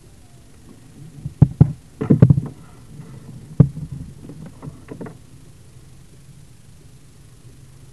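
A series of knocks and thumps, a dozen or so in about four seconds, the loudest about a second and a half in, two seconds in and three and a half seconds in.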